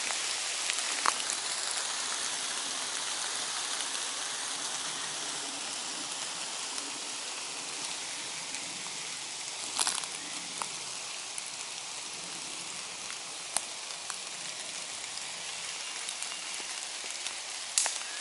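Rain and drips from the trees pattering steadily on wet woodland, easing slowly, with a few sharp taps scattered through.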